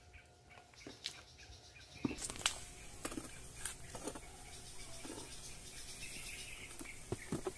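Small hand trowel working potting soil in a plastic grow bag: a few scattered soft taps and scrapes over a steady outdoor hiss.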